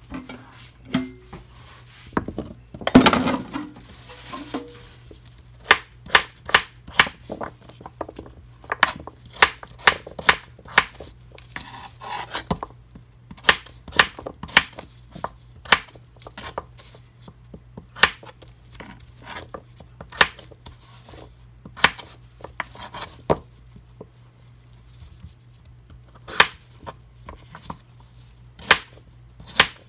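Kitchen knife chopping peeled butternut squash into cubes on a plastic cutting board: a long series of sharp knocks of the blade striking the board, irregular, roughly one or two a second. A louder clatter about three seconds in.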